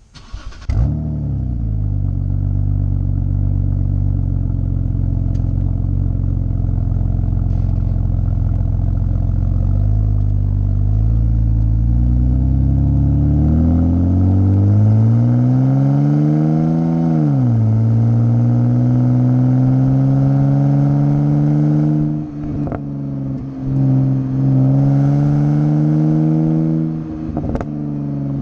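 BMW exhaust heard right at the tailpipe. The engine comes in with a sudden flare about a second in and settles to a steady drone. Later its pitch climbs for several seconds, drops sharply, holds higher, then rises again, with a few sharp exhaust crackles in the later part.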